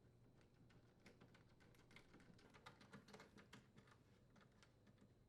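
Faint rapid clicking from a Phillips screwdriver rethreading the mounting screws of a dishwasher's outer door panel.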